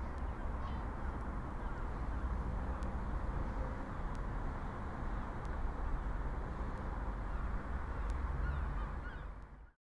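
Outdoor ambience: wind rumbling on the microphone over a steady rush of background noise, with a few faint bird calls; it fades out near the end.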